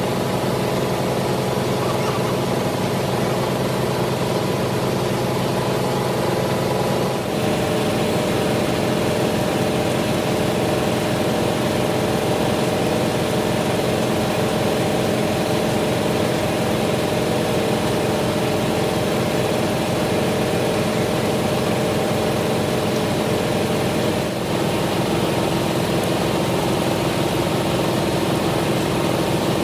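Metalworking machinery running with a steady mechanical drone and several held tones. The sound changes abruptly about seven seconds in and again a few seconds before the end.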